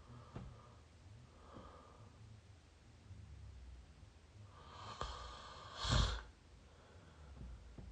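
Person snoring through an open mouth, recorded up close: soft breaths and small mouth clicks, then a longer breath that builds into one loud snore near the end.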